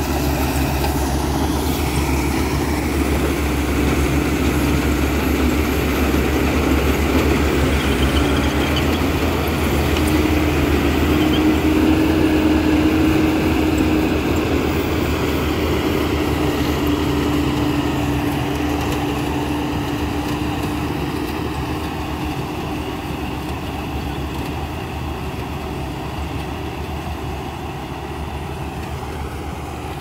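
Tracked rice combine harvester running as it cuts paddy: a steady diesel engine drone mixed with machinery noise. It grows loudest partway through and fades gradually toward the end as the machine moves away.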